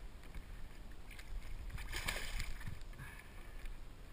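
Sea water sloshing and splashing against a kayak's hull, with a louder surge of splashing about two seconds in.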